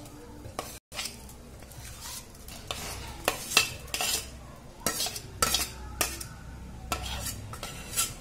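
A metal spoon or spatula scraping and clinking against a steel pan as crumbled chhena is added to milk and stirred, the strikes coming thick and sharp from about three seconds in.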